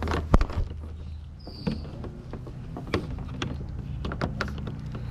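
Knocks, clicks and rattles of a coiled transducer cable being handled against a plastic kayak hull, the sharpest knock about a third of a second in, with a brief high squeak near 1.5 s. A steady low hum runs underneath.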